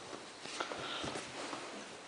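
Doberman puppy playing on a tile floor: a few soft clicks and scuffs of its paws and claws, scattered irregularly.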